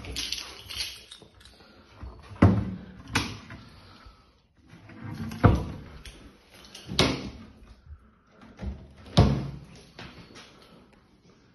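Kitchen cupboard doors and drawers being opened and shut, about five sharp knocks a second or two apart as the doors close.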